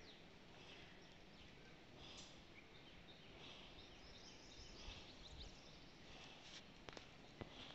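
Near silence: low background noise with faint, repeated bird chirps, and a couple of sharp clicks near the end.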